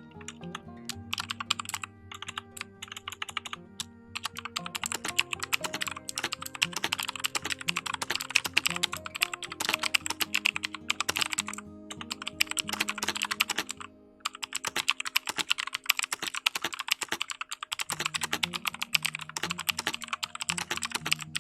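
Typing on a Fantech MK853 mechanical keyboard with clicky switches: a clickety-clack of keystrokes, fairly noisy. A few spaced keypresses at first, then fast continuous typing that stops briefly about two-thirds of the way through and picks up again.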